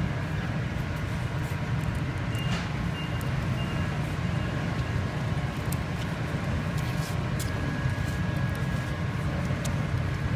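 Steady low machinery hum with a faint high whine, and a few faint clicks about two and a half seconds in and again around seven seconds in.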